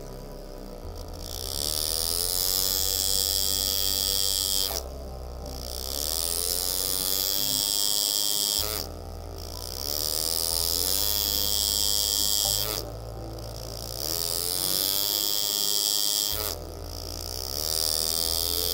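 Air-driven engraving graver buzzing as it cuts into a stainless steel knife handle, running in stretches of about four seconds with short pauses between cuts.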